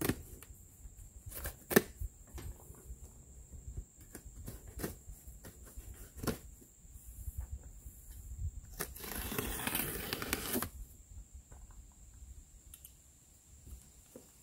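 Packing tape on a cardboard shipping box being slit with a small blade: small scratches, taps and clicks, then about nine seconds in a rasping rip about two seconds long as the tape is torn along the box.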